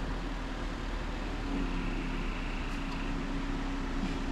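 Car engine idling steadily, a low even hum.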